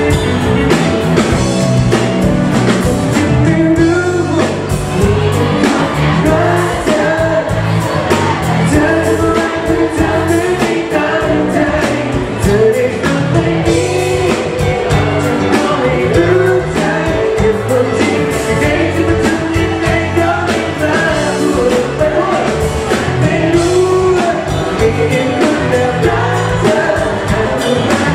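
Live pop-rock band playing, with a male lead singer carrying the melody over bass and drums.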